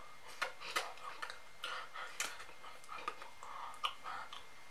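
A person's breathy whispering and mouth noises, broken by a string of sharp clicks.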